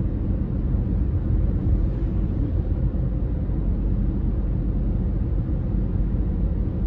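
Steady low road rumble inside the cabin of a car cruising along a paved road.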